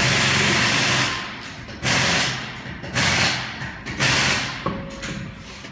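Pneumatic air tool fired in four short bursts about a second apart, each starting sharply and fading away, with two weaker bursts near the end.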